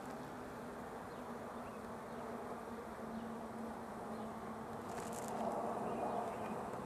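Package honeybees buzzing, a steady hum of many bees that grows somewhat louder in the second half, with a brief scratchy noise about five seconds in.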